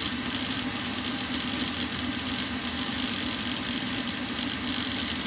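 Electric mixer motor running steadily at speed, beating cake mixture until fluffy.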